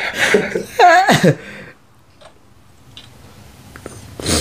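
A person's voice: short vocal sounds with a falling pitch about a second in, then quiet, and a brief puff of noise near the end.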